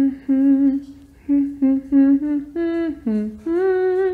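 A woman humming a short tune with her lips closed: a string of short notes, mostly on one pitch with a few steps up and down, ending on a longer, higher held note.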